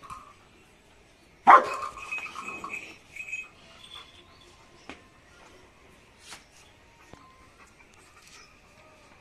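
German shepherd barking: one loud bark about a second and a half in, followed by a quick run of barks lasting about two seconds.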